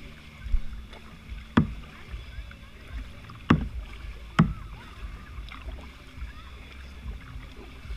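Four sharp knocks against a plastic sit-on-top kayak, unevenly spaced over the first half, over a steady low background of the boat on the water.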